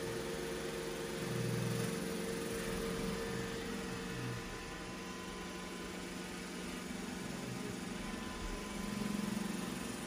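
iRobot Roomba J7+ robot vacuum running: a steady whirring hiss from its suction fan and brushes, with a low hum that swells about a second in and again near the end.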